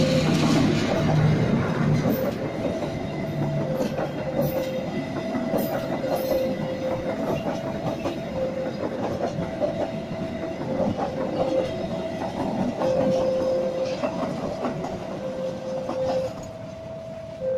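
Passenger train rolling past, its wheels clattering over the rail joints in a steady run of clicks and rumble. A two-note warning tone keeps alternating high and low underneath.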